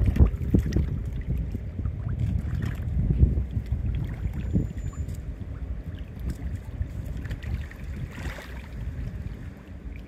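Wind buffeting the microphone: a low rumble that rises and falls in gusts, stronger in the first few seconds and easing later.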